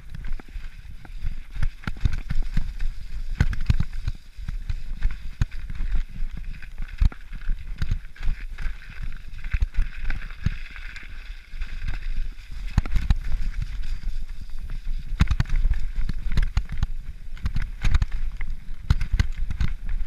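Mountain bike jolting down a rough, muddy, snowy trail: an irregular stream of knocks and rattles over a low rumble, with a steadier higher whirr for a few seconds around the middle.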